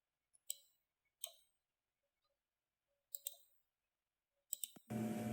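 Computer mouse clicks in a quiet room: a single click about half a second in, another a second later, a quick double click a little after three seconds, and a few more near the end.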